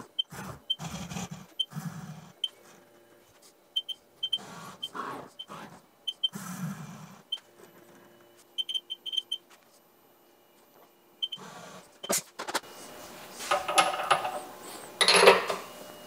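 Short high beeps from a Haas CNC mill's control keypad as keys are pressed, some single and some in quick runs of three or four, with soft knocks between them. Near the end come louder rustling and clatter as a hand reaches into the machine enclosure.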